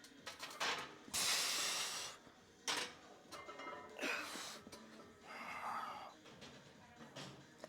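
A man breathing hard and forcefully while straining through heavy leg press reps: a long hissing exhale about a second in, then sharp, heavy breaths every second or two.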